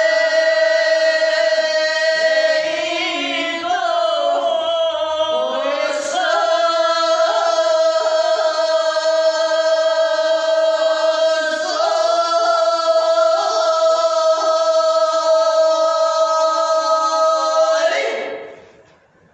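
Women singing together unaccompanied, holding long notes at a steady pitch, with a short dip and break about four to six seconds in; the singing stops abruptly near the end.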